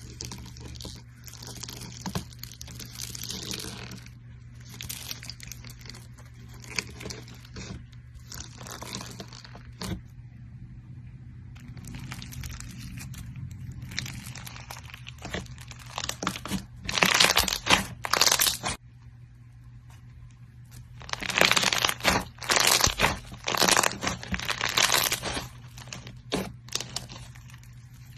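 Hands squeezing and pressing crunchy slime, giving irregular crunching and crackling, loudest in two spells in the second half, over a faint low hum.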